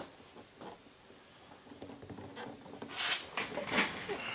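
Small rubbing and scuffing of fingers working a fuel line tube onto the carburetor nipple of an O.S. model airplane engine, with a couple of louder scuffs about three seconds in.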